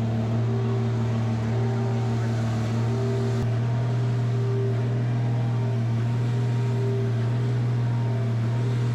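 A large engine running steadily at constant speed, with a low hum and a faint regular pulse over it. This is typical of heavy equipment such as a concrete pump or ready-mix truck at a pour.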